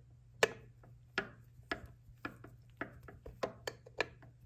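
A hand tool working a thread chaser into a threaded hole in a motorcycle hub: a series of sharp metal clicks, roughly two a second and unevenly spaced, as the tool is turned and repositioned.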